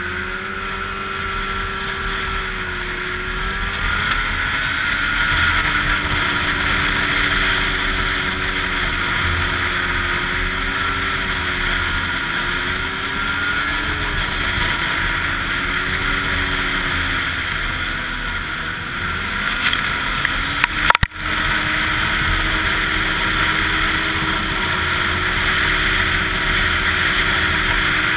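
Snowmobile engine running on the trail, its pitch rising and falling gently as the throttle changes. A single sharp knock comes about three-quarters of the way through.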